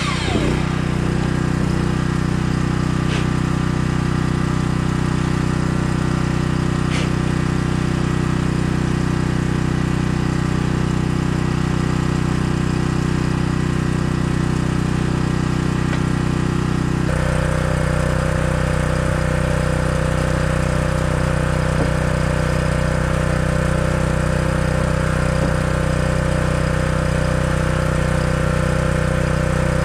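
Portable gas generator engine running steadily. At the very start a miter saw's blade winds down. About halfway through, the generator's hum changes tone and runs on.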